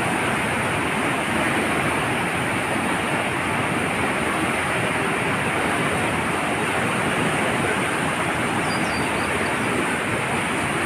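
Floodwater of the Cauvery River pouring over a concrete weir and churning below it: a loud, steady rushing of water.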